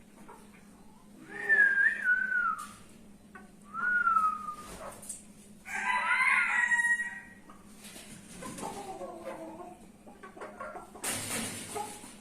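Fancy-breed roosters crowing three times: about a second in, about four seconds in, and a louder, rougher crow about six seconds in. Softer clucking calls follow, and a short burst of rustling noise comes near the end.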